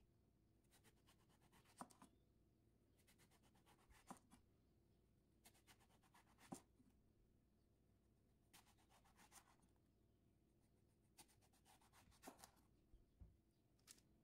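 A chef's knife slicing through a whole eggplant on a wooden cutting board. There are about five faint cuts a couple of seconds apart, each a quick run of crisp rasping through skin and flesh that ends in a tap of the blade on the board.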